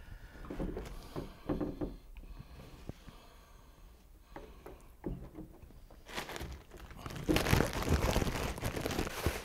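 Plastic packaging being handled and pulled open: a few small clicks and rustles at first, then steady crinkling from a little past the middle to the end, the loudest stretch.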